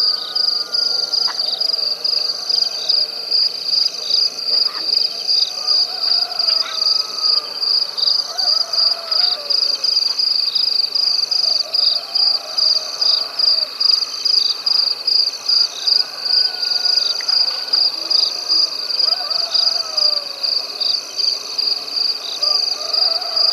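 Night insect chorus, crickets trilling in a loud, high, rhythmically pulsing drone, with fainter wavering calls from other night creatures underneath.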